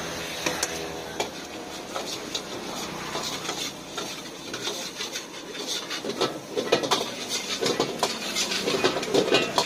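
Steel ladle scraping and clanking against a large wok while eggs are stirred and broken up. The strokes come quicker and louder in the second half.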